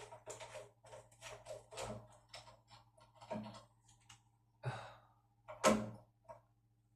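Irregular small clicks and taps of screws and hand tools being worked on a door handle, with two louder knocks about two-thirds of the way through.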